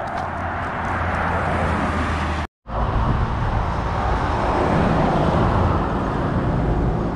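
Highway traffic: cars and a pickup truck driving past, a steady loud rush of tyres and engines. The sound cuts out for a moment about two and a half seconds in, then the passing traffic swells again.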